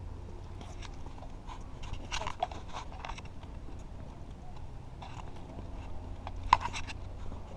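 Light scattered taps of footsteps and camera handling over a low rumble on the camera's microphone, with one sharp click about six and a half seconds in.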